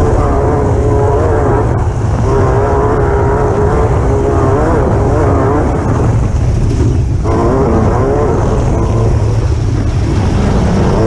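Off-road race buggy's engine running hard under load, its pitch wavering as the revs rise and fall, over heavy road noise. The engine note breaks up about six seconds in and comes back a second later.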